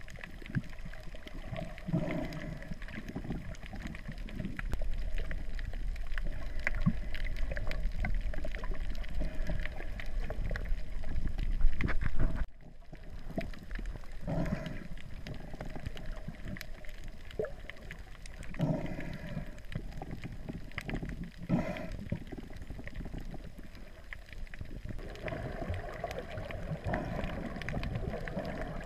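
Muffled underwater water noise picked up by a GoPro Hero3 Black inside its waterproof housing. A low rumble runs under it and cuts off suddenly about twelve seconds in, and there are a few short surges of noise along the way.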